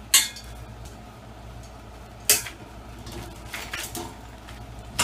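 Folding bed frame pieces clanking and rattling as they are handled and pulled apart: two sharp clanks, just after the start and a little past two seconds, lighter knocks around three and a half to four seconds, and another clank at the very end.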